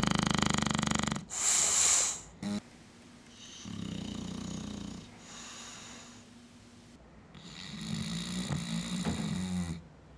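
English bulldog snoring: a loud rattling snore at the start, a hissing breath out, then more snoring breaths, the last one louder, about 7 to 10 seconds in.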